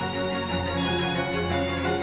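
Slow background music with held string notes, violin-like over a low cello-like line.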